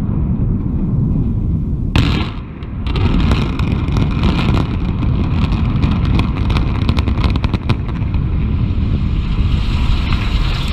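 Implosion of a high-rise hotel tower by explosive demolition. After a low steady rumble, a sharp blast comes about two seconds in, then a rapid string of detonation cracks over the deep rumble of the tower collapsing.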